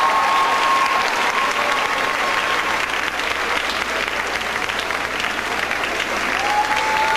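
Audience applauding steadily in a dense patter of many hands clapping. A held tone fades out about a second in, and another begins near the end.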